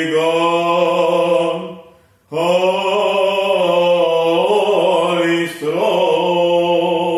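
A solo male voice chanting an Orthodox liturgical text, intoning long phrases on a nearly steady pitch, with short breaths between them about two and five seconds in.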